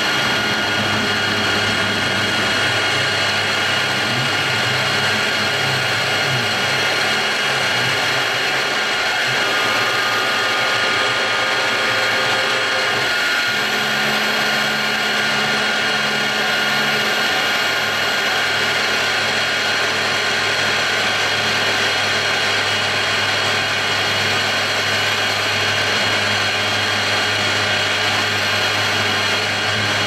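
CNC milling machine spindle running at 3000 RPM, a two-flute quarter-inch end mill cutting through a thin sheet-metal panel, with the hiss of a coolant spray at the cutter. A steady machine whine with several held tones; the lower hum from the machine shifts pitch a few times around the middle as the cut moves.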